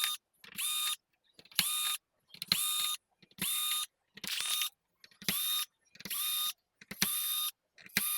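Small electric screwdriver running in short bursts about once a second, backing out the many screws of a PS5 Slim. Each burst is a brief whine that rises quickly to a steady pitch, then stops, with faint clicks in between.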